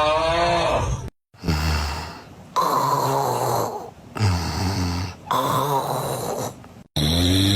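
Recorded human snoring played as separate short clips. A loud snore with a wavering pitch stops abruptly about a second in. After a short gap comes a run of four snores about a second apart, then another pitched snore starts after a cut near the end.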